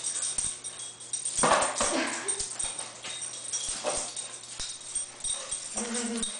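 Cairn Terrier puppy whining and yipping as it attacks a broom, with two short pitched calls, one about a second and a half in and one near the end. Broom bristles swish over the tile floor, and small claws click and skitter on the tiles.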